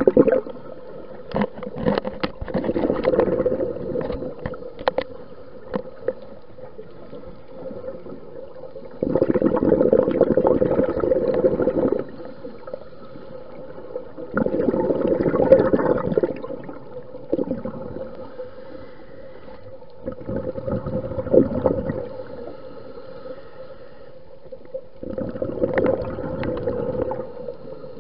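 Scuba divers' exhaled air bubbling out of the regulator underwater: a burst of bubbling every five or six seconds, each lasting two to three seconds, with a quieter steady background between and a few sharp clicks near the start.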